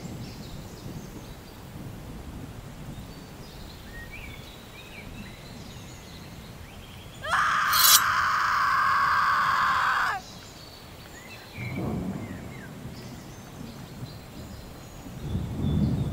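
Outdoor ambience with faint bird chirps. About seven seconds in, a loud, harsh sound effect lasts about three seconds, with a sharp hit near its start. A low rumble swells near the end.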